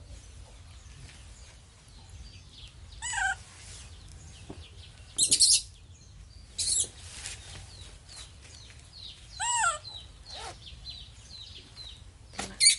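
Baby macaque giving several short, high-pitched calls a few seconds apart, some rising and falling in pitch.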